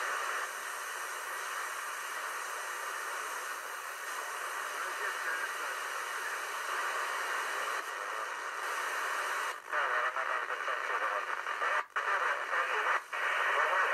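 Receiver audio from a software-defined radio tuned across the 2-metre (145 MHz) amateur band: a steady hiss of static between stations, with a faint voice of a radio amateur coming through the noise in the second half. The audio briefly cuts out a few times near the end.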